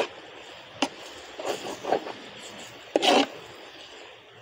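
Metal spoon scraping and knocking against a clay cooking pot as thick onion-tomato masala with spice powders is stirred, in irregular strokes with the loudest scrape about three seconds in, over a faint steady hiss of frying.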